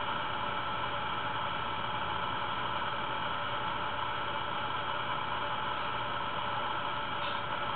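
Steady hiss with a constant low hum and a few faint steady tones. No purring or other sound from the kitten stands out.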